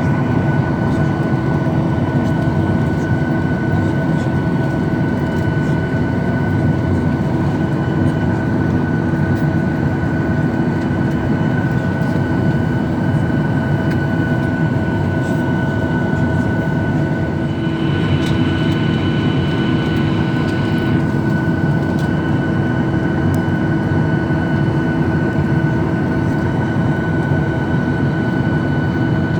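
Boeing 737-800's CFM56 jet engines running steadily: a loud, even roar with a constant high whine, no rise or fall in pitch. A higher hiss joins for about three seconds partway through.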